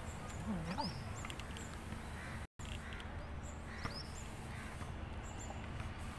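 Small birds chirping now and then over a steady low hum, with a short low rising-and-falling sound about half a second in; the sound cuts out for an instant near the middle.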